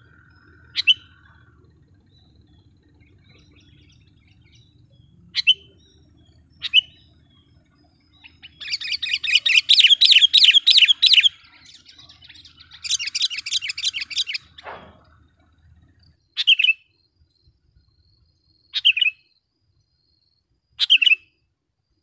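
Sooty-headed bulbul (kutilang) calling: single short, sharp call notes a few seconds apart, with two loud bursts of rapid chattering near the middle, each two to three seconds long.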